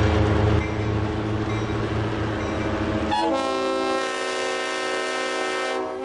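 EMD SW1200 switcher's 12-cylinder 567 diesel engine running as the locomotive approaches. About three seconds in, its air horn sounds a long chord of several tones, held to the end.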